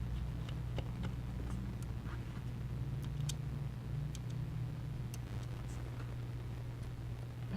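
Faint scattered clicks and ticks of a small screwdriver and tiny screws against an iPhone 6's internal parts while screws are driven back in, over a steady low hum.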